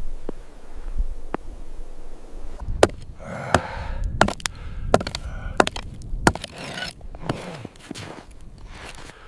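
A low rumble, then from about three seconds in a run of irregular sharp knocks mixed with scraping and rustling.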